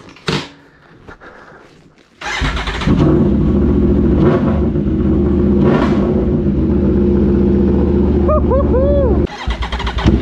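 An Aprilia Tuono V4 1100's 65-degree V4 engine, fitted with an SC Project aftermarket exhaust, starts about two seconds in and settles into a loud, steady idle. The sound drops off suddenly near the end.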